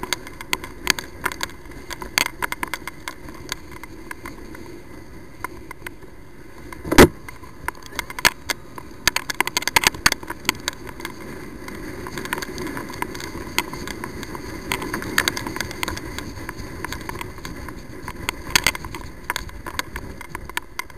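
Riding noise from a moving motorbike on its mounted camera's microphone: a steady low rumble of road and wind noise, broken by frequent sharp clicks and crackles, with one loud thump about seven seconds in.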